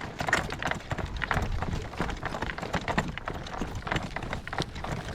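Hoofbeats of a Morgan gelding in harness pulling a cart: a steady, uneven run of clip-clops.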